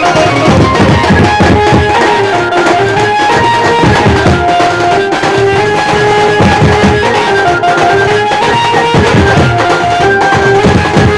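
A Konkan benjo band playing loudly: an amplified electric banjo picks a stepping melody over a heavy, steady drum beat.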